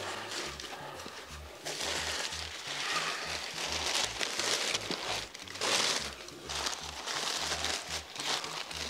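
Paper packing rustling and crinkling in irregular bursts as it is handled and pulled out of a cardboard box.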